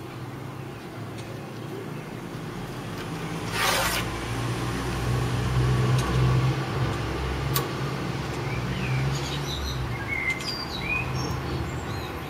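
A motor vehicle running past, its low engine hum swelling over several seconds and then fading, with a short rustle a few seconds in, a couple of light clicks, and birds chirping near the end.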